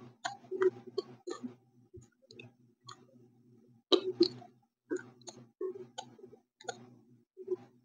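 Close-miked chewing of something crunchy: a run of irregular crisp crunches and mouth clicks, dropping away for a moment about two seconds in, then picking up again about four seconds in.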